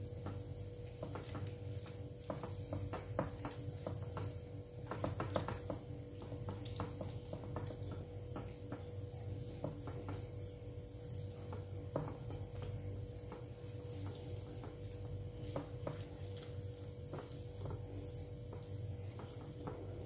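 Hands rubbing a wet herb-and-spice chermoula marinade into a whole raw white fish on a plate: soft squishing with many small scattered clicks of fingers on flesh and plate, over a steady low hum.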